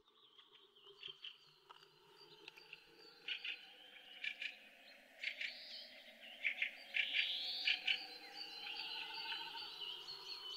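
Birds chirping and calling, some calls rising and falling in pitch, over a steady high insect trill; the sound fades up from silence over the first few seconds.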